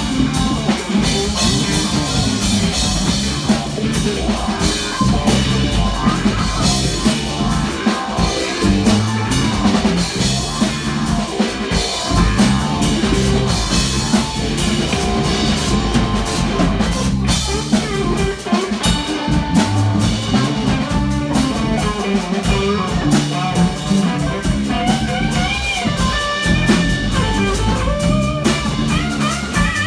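Live rock band playing, with drum kit and guitar.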